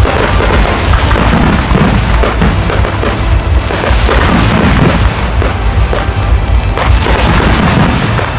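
A fireworks display going off: many shell bursts booming and crackling in quick succession over a steady low rumble, with loud music playing along with the show.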